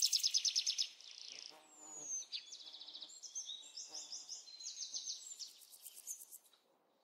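Birds calling: rapid high trills and chirps in quick succession, fading out shortly before the end.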